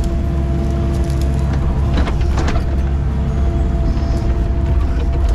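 Excavator's diesel engine running steadily while the boom and bucket are worked, heard from inside the cab as a low rumble with a steady drone. A few sharp knocks and rattles come about two seconds in.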